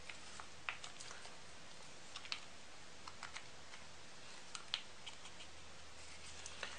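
Faint, scattered light clicks and taps as the motor and internals of a Bosch 12V impact driver are handled and settled into its plastic housing half, a dozen or so irregular small clicks.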